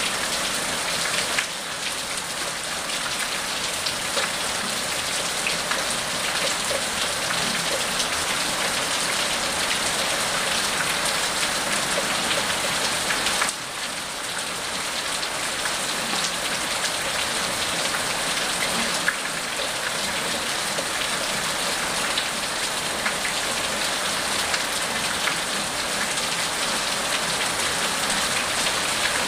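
Steady rain falling on a wet paved street, an even hiss flecked with the patter of single drops splashing.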